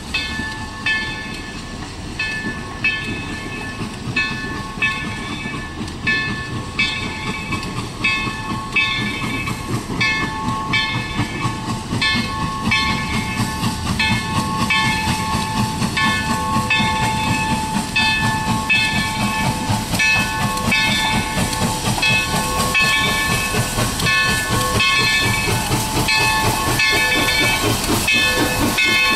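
Chinese QJ 2-10-2 steam locomotive approaching under steam and growing steadily louder, with a hiss of steam and a regular ringing stroke about once a second.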